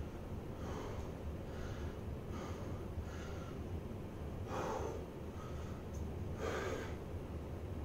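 A man breathing hard from the effort of flexing through bodybuilding poses: short, noisy breaths about once a second at first, then two louder ones near the middle and near the end. A steady low hum sits underneath.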